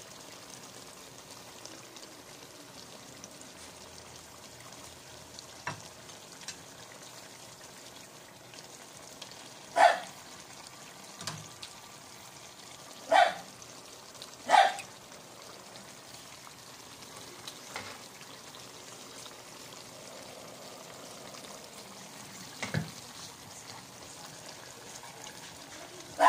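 Beef and marinade sauce simmering in a frying pan, a steady low bubbling hiss. Three short loud sounds cut in about ten, thirteen and fourteen and a half seconds in.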